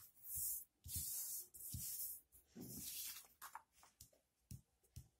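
Round paper cards being spread and slid over a cloth-covered table: a series of soft rustles and brushes, then a few faint light taps in the last couple of seconds.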